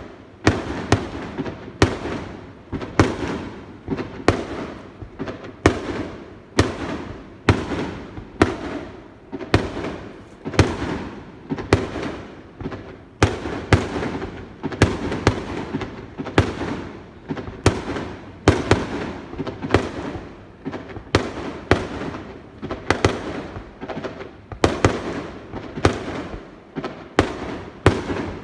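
Aerial fireworks bursting in quick, steady succession, about one to two loud bangs a second, each bang trailing off in a rumbling, crackling echo.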